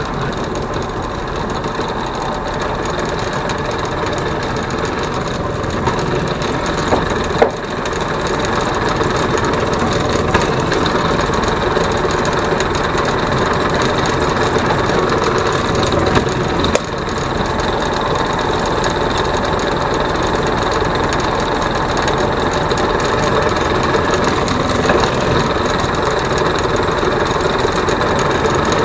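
A motor running steadily without a break, with a couple of short knocks, one about a third of the way in and one past the middle.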